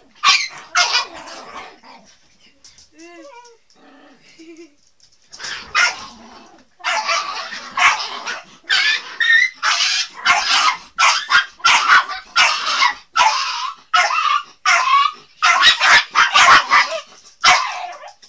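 Small dog barking in a long, rapid string of loud barks, about two a second, with a brief high whine a few seconds in.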